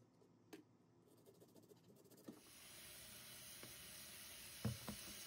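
Faint steady hiss of tap water running onto halved Brussels sprouts in a bowl, starting about two seconds in after a few faint knife clicks on a plastic cutting board. Two soft knocks near the end.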